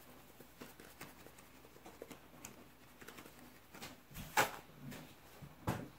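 Quiet room with a few faint clicks and light knocks of handling, a sharper click about four seconds in and another near the end.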